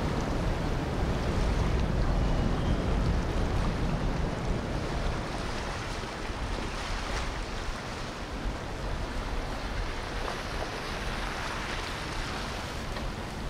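Boat on open water: a low rumble that is strongest in the first few seconds and then eases, over a steady hiss of water and wind on the microphone.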